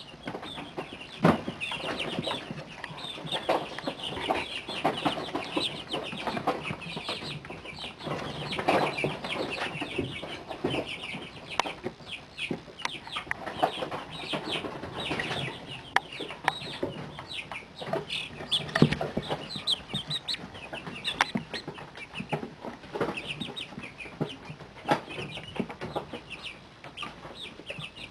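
A brooder full of month-old chicks peeping and chirping nonstop in short, high calls, with some lower clucks. Scattered sharp taps sound among them, the loudest about a second in and again past the middle.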